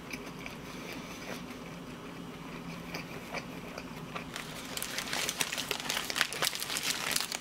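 Close-up chewing of a bacon toast with the mouth closed, soft and low at first. About four seconds in, the paper wrapper around the toast starts crinkling and rustling in the hands with a rapid run of crackles.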